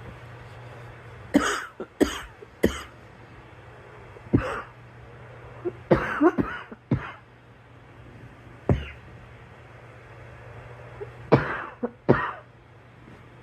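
A girl coughing: about ten sharp coughs in small groups, three in quick succession near the start, then single coughs and short clusters a second or more apart, and a pair near the end.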